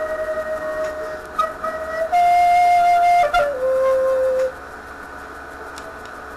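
Flute playing a slow melody of long held notes over a quieter backing track; the last, lower note stops about four and a half seconds in, leaving only the backing.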